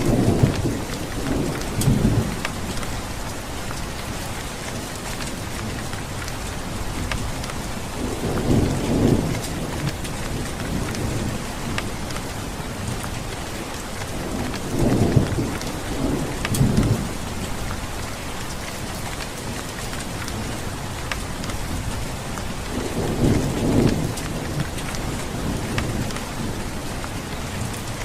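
Steady rain falling, with low rumbles of thunder rolling in every several seconds, five or so times.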